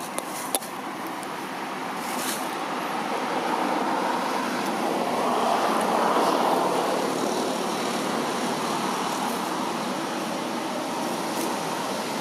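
Road traffic noise, a steady rush that swells as a vehicle passes, loudest about halfway through. Two short clicks come near the start.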